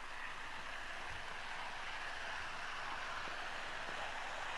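OO gauge model train running along the garden track: a steady whirring hiss of its motor and wheels on the rails, a little louder from about half a second in.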